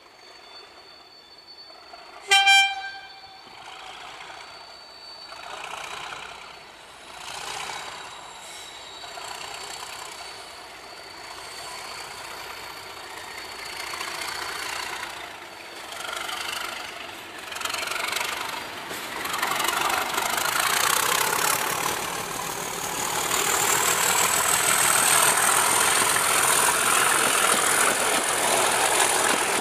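Class 37 diesel locomotive sounds one short horn toot, then grows louder as it approaches hauling passenger coaches, and runs past loudly. A high whine rises as it passes.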